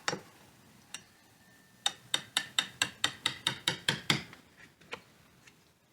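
A hammer tapping a wood chisel into a door jamb to deepen the recess for a strike plate. There is a single tap, then another about a second later, then a quick run of about eleven sharp taps at roughly five a second, and a few lighter taps near the end.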